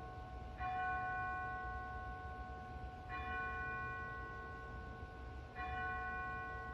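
A bell tolling: three strikes about two and a half seconds apart, each ringing on until the next.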